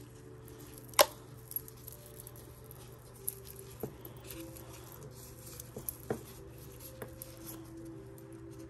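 Light clicks and small rattles of a tangled necklace chain being handled and worked loose by hand, with one sharper click about a second in and a few more scattered through.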